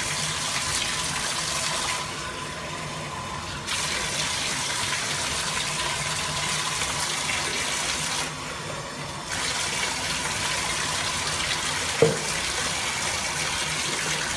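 Faucet water running onto a puppy as it is rinsed in its bath, stopping twice for a second or two. A brief squeak near the end.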